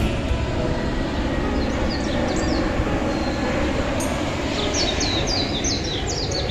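A steady low rumble and rushing noise, with birds chirping over it: a few falling chirps about two seconds in, then a quick run of repeated falling chirps from about four and a half seconds.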